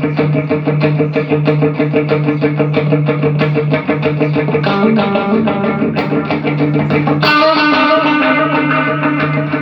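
Electric guitar played through a Line 6 POD HD500 multi-effects board into a Pignose G40V tube amp, the board passing sound again after a repair of its failed A/D converters. A steady run of fast picked notes plays over a held low note, and a brighter chord rings out about seven seconds in.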